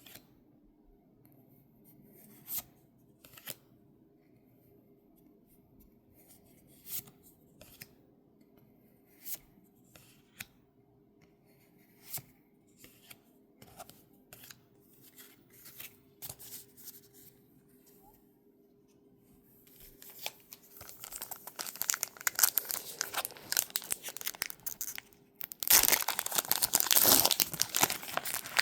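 Scattered light clicks of cards being handled, then a foil Pokémon booster-pack wrapper being crinkled and torn open, starting about twenty seconds in and growing loudest near the end.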